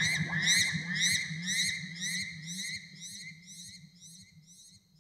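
Electronic chirps repeating about twice a second over a low drone, fading out steadily.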